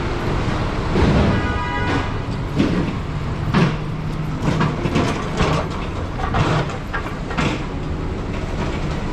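City street traffic noise on a wet road, steady throughout, with a brief high squeal about a second and a half in and soft knocks roughly once a second.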